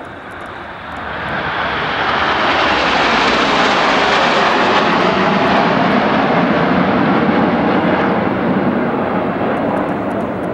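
Formation of BAE Hawk T1 jets flying past: the jet engine noise swells about a second in, holds loud, and begins to fade near the end.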